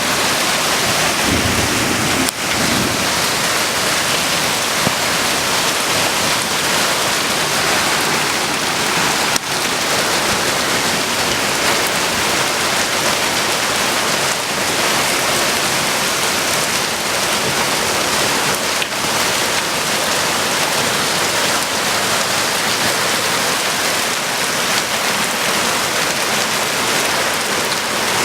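Heavy rain falling steadily, a continuous loud hiss with a few faint clicks.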